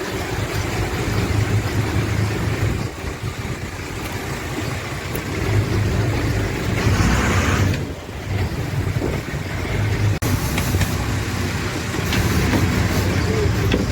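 Boat engine running steadily with a low drone, a short louder hiss about seven seconds in.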